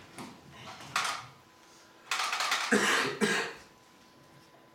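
Small audience in a little room laughing in a short burst about two seconds in, after a brief sound about a second in.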